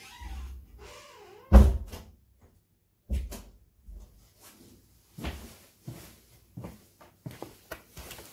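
Scattered knocks and thumps like a cupboard or door being handled, the loudest about a second and a half in, followed by a run of small clicks and taps near the end.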